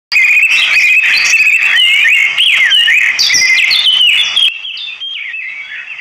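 Many birds chirping and whistling together, a dense chorus of quick rising and falling calls that drops to quieter, sparser chirping about four and a half seconds in.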